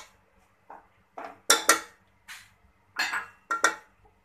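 A spoon scraping and knocking against the sides of an aluminium pressure cooker while working through cooked chana dal, in about eight short, uneven strokes.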